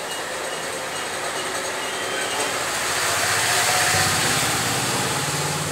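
Motor vehicle going past, its engine and road noise growing louder to a peak about four seconds in, then easing off.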